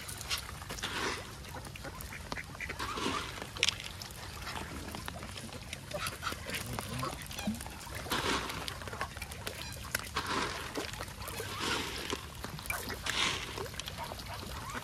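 Ducks quacking and geese honking, a short harsh call every two seconds or so, over a steady low background rumble.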